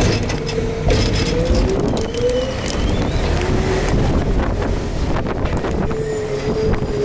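Garbage truck running, with a whine that wavers up and down in pitch over a dense rumble, scattered knocks, and wind buffeting the microphone.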